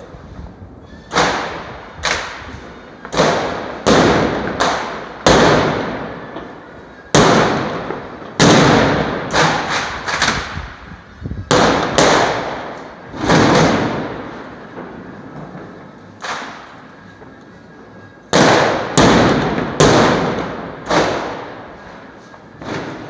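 Firecrackers exploding in the street, a rapid, irregular string of sharp bangs, often two or three in a second, each followed by a short echoing tail. There are brief lulls about six and sixteen seconds in.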